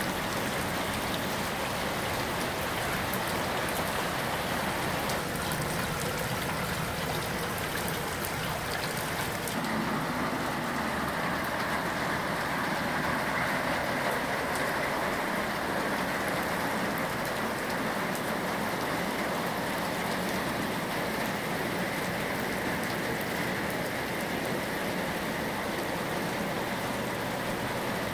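Heavy rain falling steadily, a continuous hiss of water. For the first several seconds, rainwater from a drainpipe splashes into a full basin, with fine drop ticks on top; then the rain goes on alone.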